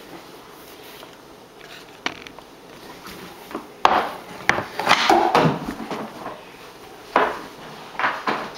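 Hockey stick and puck knocking on a hardwood floor: a single tap about two seconds in, a burst of loud clacks and clatters from about four to five and a half seconds in, and a few more knocks near the end.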